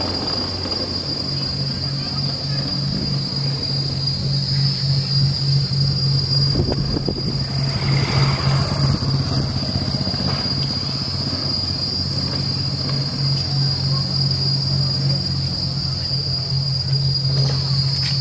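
Insects droning steadily in the park trees on one high, unbroken pitch, over a low steady hum, with a louder rushing swell about eight seconds in.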